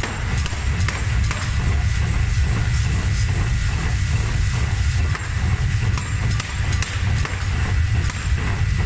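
Power forging hammer pounding a red-hot steel block in quick, regular blows, about three a second, over a constant deep rumble from the machine.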